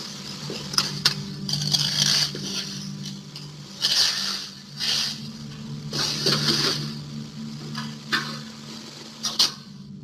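Metal tools clinking and scraping under a car in short uneven bursts, with a couple of sharp clicks about a second in, over a steady low hum. It is the sound of thieves working to remove a catalytic converter.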